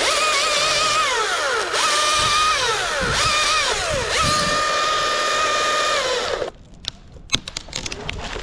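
Husqvarna T540i battery top-handle chainsaw starting suddenly and running for about six seconds, its whine dropping in pitch several times as it loads in the cut and climbing back, then cutting off. A run of sharp clicks and knocks follows.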